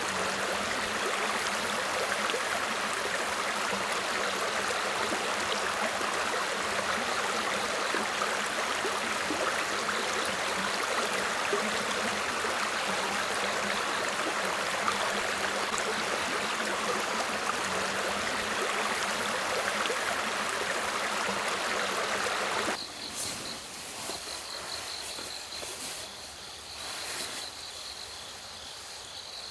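River water rushing steadily. About 23 seconds in it cuts off abruptly to a quieter night ambience of insects chirping in a high, steady pulsing trill.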